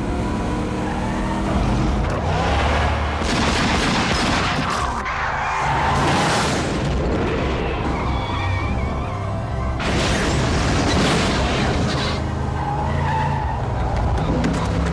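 Tense film score with low sustained notes, mixed with loud surges of vehicle and impact sound effects about two, six and ten seconds in.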